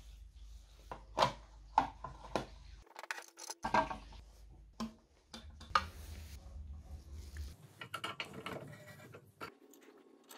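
Irregular clicks, taps and knocks of hard plastic and metal parts being handled and fitted together: a plastic mudguard being put against a scooter's metal front fork and worked with a screwdriver.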